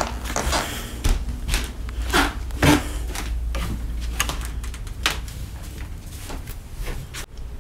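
Handling noise from a handheld phone camera: scattered soft taps and rustles over a low hum that fades out about five seconds in.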